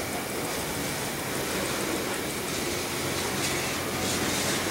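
Freight train cars rolling past at steady speed: a continuous rumble and rush of steel wheels on rail, with a few faint clicks in the second half.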